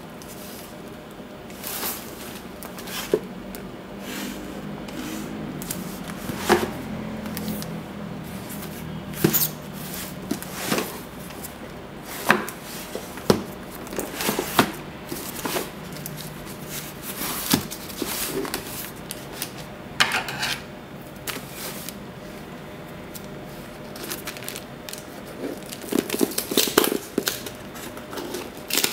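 A cardboard shipping box wrapped in packing tape and plastic being handled and turned over on a desk, with scattered taps and knocks. Near the end, scissors snip at the tape and the plastic wrap crackles.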